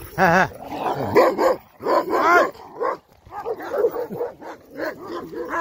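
Large shepherd dogs barking and yelping in a scuffle: a string of loud, uneven barks and higher yelps.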